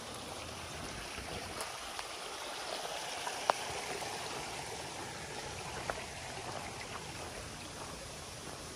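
Small spring-fed brook babbling steadily, with a couple of sharp clicks in the middle.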